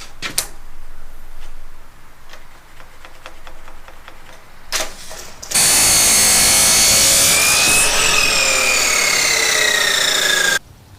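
Power drill driving a screw into a 2x6 board: a short burst of the motor, then about five seconds of steady running whose pitch falls over the last two seconds before it stops abruptly. Light knocks and handling sounds come before it.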